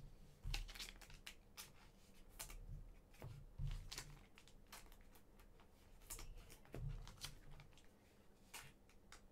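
Faint handling of trading cards and their pack wrapper: scattered soft clicks and short rustles, with a few low thumps.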